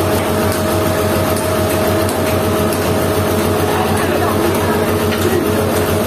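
An engine running steadily at an even speed, without revving.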